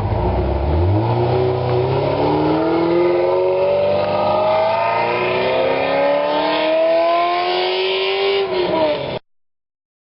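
Sports car engine accelerating hard, its pitch rising steadily for about eight seconds, then dropping off near the end before cutting off suddenly.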